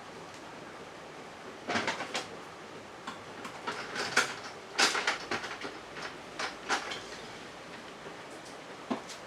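A run of irregular knocks and clatter from about two seconds in to about seven seconds in, then one more knock near the end.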